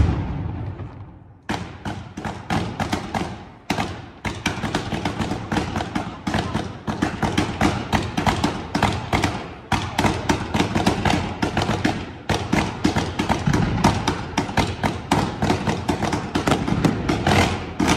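Aerial fireworks barrage: a fading boom at the start, then from about a second and a half in a dense, continuous run of sharp bangs and cracks, many a second, that dies away at the end.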